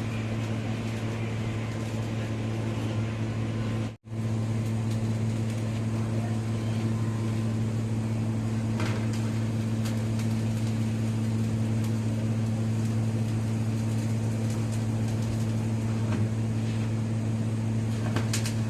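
Steady low machine hum, like an electric motor or pump running, with a brief cut-out about four seconds in and a few faint metallic taps near the end.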